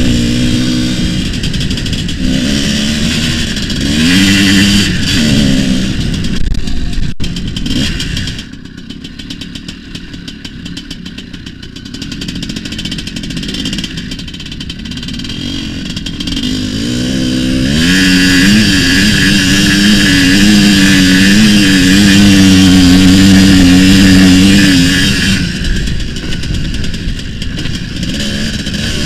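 Tuned single-cylinder two-stroke engine of a homemade IZh Planeta cross-enduro motorcycle being ridden hard, its pitch climbing and dropping with throttle and gear changes. It falls quieter for a few seconds around the middle, then holds a long, loud, high rev before easing off near the end.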